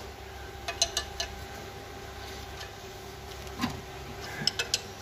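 Scattered light metallic clinks of a spanner on a diesel injector's fuel line nut, loosened to bleed air from the injector. There is a cluster of taps about a second in, one near the middle and a quick run of three near the end, over a faint steady hum.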